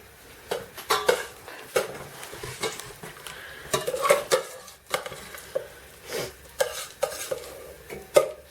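A spoon scraping and clinking against a pan, spooning out stewed apple and blackberry, in irregular strokes with a dozen or so sharp knocks.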